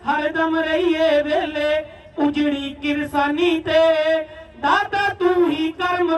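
A single voice chanting in short sung phrases, each note held briefly and bending in pitch, with brief pauses between phrases.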